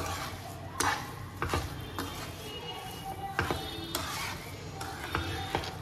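Spoon stirring grated carrots and sugar in a pan for carrot halwa, scraping and knocking against the pan at irregular moments about once a second over a faint sizzle.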